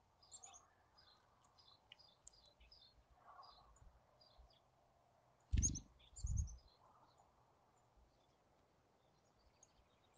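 Faint background birdsong: many short, high chirps from small songbirds scattered throughout. Two brief low thumps sound a little past halfway, about half a second apart.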